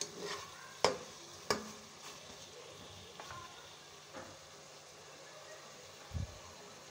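Chicken and tomato masala frying in ghee in a non-stick pot, a faint steady sizzle as the masala is browned (bhuna). Two sharp knocks of the wooden spoon against the pot about a second in, and a short low thump near the end.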